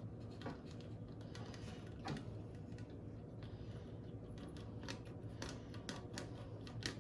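Faint scattered clicks and short light rustles, as of small parts being handled, over a low steady hum.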